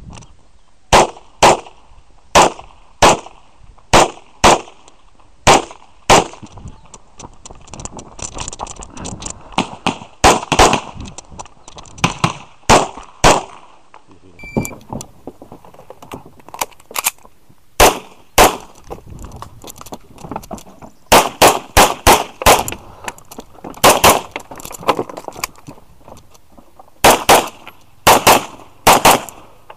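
Grand Power X-Calibur pistol firing, shots mostly in quick pairs (double taps) about half a second apart, with short pauses between strings as the shooter moves between positions.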